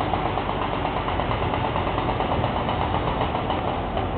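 Industrial machinery running steadily with a fast, even pulse, likely the manipulator's drive turning a paper bobbin.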